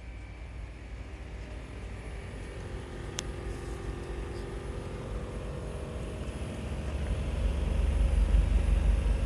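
Heat pump outdoor unit running with a steady hum over a low rumble, the rumble growing louder over the last few seconds. A single brief click about three seconds in.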